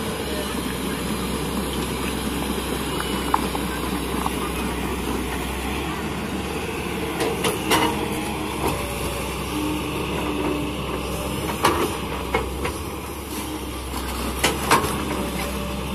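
Kobelco SK210 hydraulic excavator's diesel engine running steadily under digging load in wet mud, with a few sharp knocks from the bucket and arm about halfway through and again near the end.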